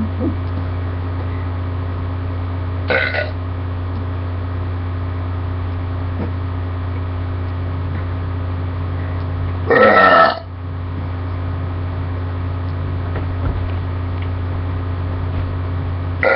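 A person burping: a short burp about three seconds in, a long, loud one about ten seconds in, and another starting right at the end. A steady low hum runs underneath.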